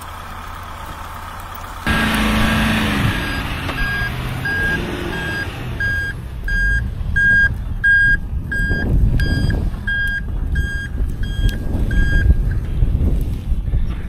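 A vehicle's reversing alarm beeping steadily, about two beeps a second, over the low rumble of a van's engine in deep snow. The beeping starts about three seconds in and stops shortly before the end.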